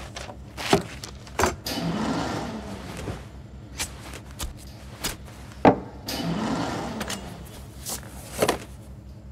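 A knife cutting through a loaf of dense bread down onto a table: about eight sharp knocks at uneven intervals, with longer scraping strokes between them.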